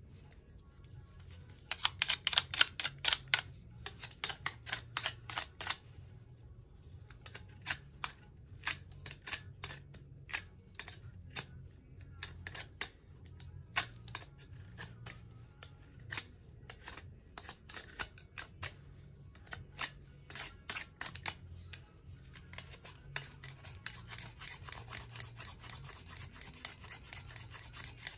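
Tulsi twigs being worked by hand with a cutting tool: quick runs of sharp snipping clicks, several a second at first and more scattered later, turning to a steady scraping rasp near the end.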